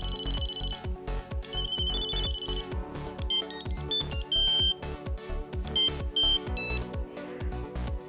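Ericsson R600 mobile phone previewing its built-in ring signals one after another as the menu is scrolled: a short high-pitched beeping ring, then runs of quick single-note beeping melodies that change every second or two. A steady beat of background music runs underneath.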